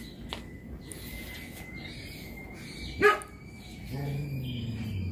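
A dog barks once, sharply and loudly, about three seconds in, over quiet outdoor background.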